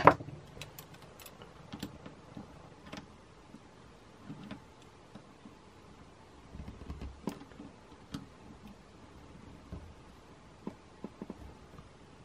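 Pliers working on stainless steel hose-clamp wire as the cut wire ends are bent down between the windings: scattered light metallic clicks and taps, with one sharp click at the very start.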